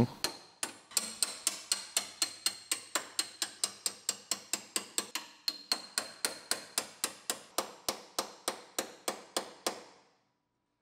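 Hammer striking a chisel against sheet steel, knocking the seam welds of a body brace loose: steady, quick metallic blows at about four a second that stop about ten seconds in.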